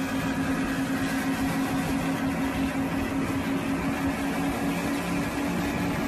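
Steady engine drone over a rushing of wind and water, from a racing powerboat at full speed with a helicopter flying low alongside.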